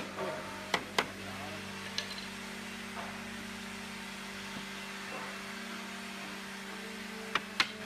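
A steady, low mechanical hum from a running motor, with a few sharp knocks: two about a second in, one at two seconds, and two close together near the end.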